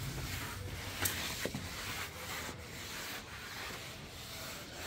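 Wet floor cloth on a long mop stick being pushed and dragged across a tiled roof floor, a steady rubbing and swishing as the washed floor is wiped dry. A couple of light clicks sound about a second in.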